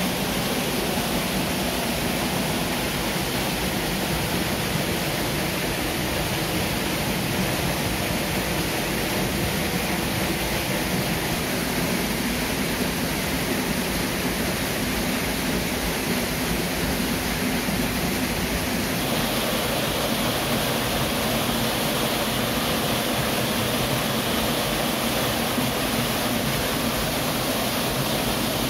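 Nanayo Falls waterfall giving a steady, unbroken rush of falling water. About two-thirds of the way through, the sound turns brighter and more hissing.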